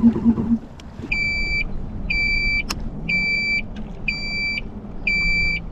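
A jet ski's engine running steadily cuts out about half a second in, the stall behind the motor failure. Then a high electronic beep, typical of the watercraft's warning buzzer, sounds about once a second, five times, with one sharp click between the beeps.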